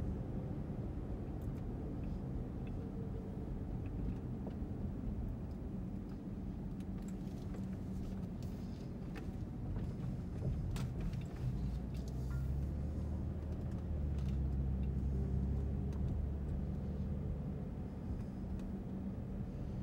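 Car cabin noise while driving: steady engine and tyre rumble, heavier for several seconds past the middle, with a few small clicks and rattles.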